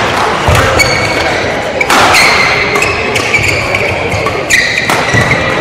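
Badminton doubles rally: rackets hitting the shuttlecock and players' shoes squeaking and thudding on the court floor, several sharp hits and a few short squeaks.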